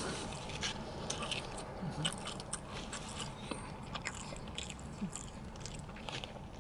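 A person chewing a big mouthful of steak sandwich close to the microphone, with scattered small wet clicks and smacks of the mouth.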